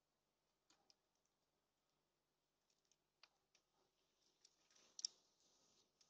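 Near silence broken by faint, scattered clicks and taps, the loudest about five seconds in: birds pecking seed and shifting their feet on a tube seed feeder.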